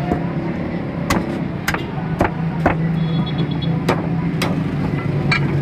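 Meat cleaver chopping through a goat head on a wooden log block: about seven sharp strikes at uneven intervals, over a steady low hum of road traffic.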